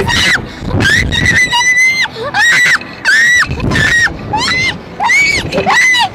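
Young girls screaming on a thrill ride: a quick string of short, high-pitched shrieks, about two a second, each rising and falling in pitch.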